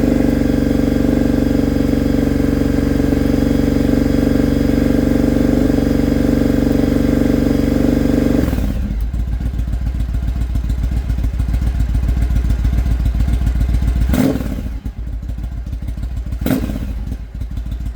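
Carbureted motorcycle engine with a 2-into-1 exhaust, high-flow air filter and jet kit, held at steady raised revs, then dropping to a pulsing idle about eight and a half seconds in, with two short sharp noises near the end. The engine has been misfiring since these parts went on, which the owner puts down to carburettors needing adjustment.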